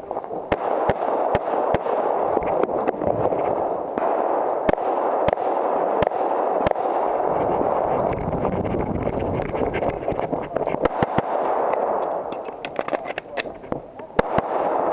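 Pistol shots fired in quick strings with short pauses between them during a timed IDPA course of fire, over a steady rushing noise.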